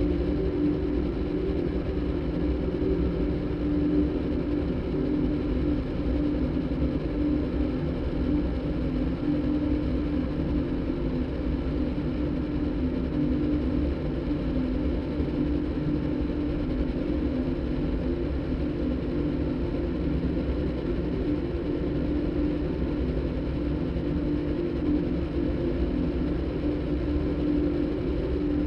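Steady droning synthesized soundtrack made by cross-synthesizing a motorbike engine recording with a đàn bầu (Vietnamese monochord) recording: an unbroken engine-like hum with a held low-mid tone and no breaks or changes.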